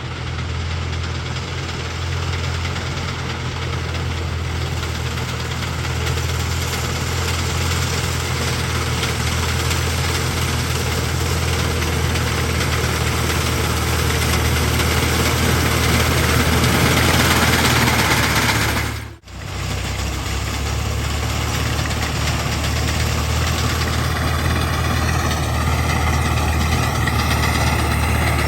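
Fiat 480 tractor's three-cylinder diesel engine running steadily at working speed, slowly growing louder, with a sudden momentary dropout about two-thirds of the way through. Faint wavering higher tones join in near the end.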